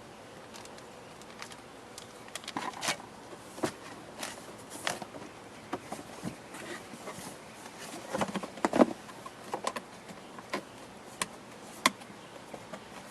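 Irregular clicks, taps and rustles of parts being handled, with a cluster of louder knocks about eight to nine seconds in.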